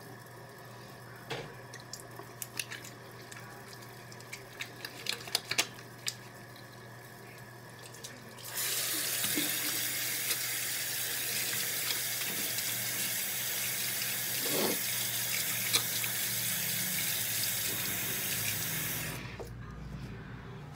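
A few light clicks and knocks, then a bathroom sink tap runs steadily for about ten seconds while sticky hands are washed with soap under it, and it is shut off abruptly near the end.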